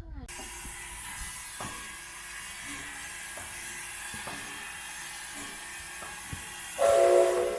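Steam locomotive hissing steadily, with a few faint knocks, then giving one short, loud blast of its steam whistle near the end, the signal that it is about to pull away.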